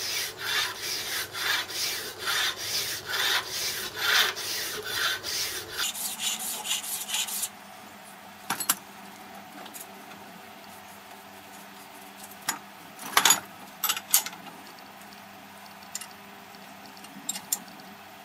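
Body filler file rasping across a flat aluminium casting in quick, regular back-and-forth strokes. The filing stops abruptly about seven seconds in, leaving only a few isolated clicks and knocks of tools being handled.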